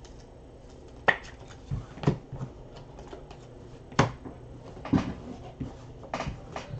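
Hard plastic trading-card cases clicking and clacking as they are handled and set down on a stack: about seven sharp, irregular taps over several seconds.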